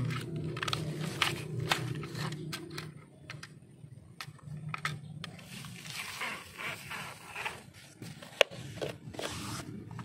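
Wet sand and mud scraping and crunching as fingers pack it into a plastic toy trailer and the toy is pushed over dirt, with scattered small clicks and one sharp click about eight seconds in.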